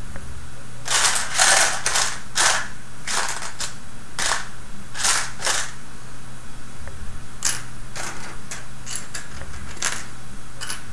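Loose plastic construction-kit parts clicking and rattling against each other as they are rummaged through by hand, in irregular clicks with a short lull midway.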